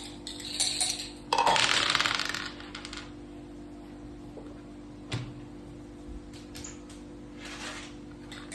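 Dice and pieces of a mak saka (Thai backgammon) game: a loud clattering rattle about a second in, then a sharp click and a few faint clicks of pieces being set on the board. A steady low hum runs underneath.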